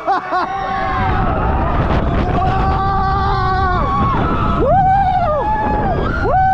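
Roller coaster riders screaming in long rising-and-falling whoops over the steady rumble and wind of the moving train. The rumble grows about a second in.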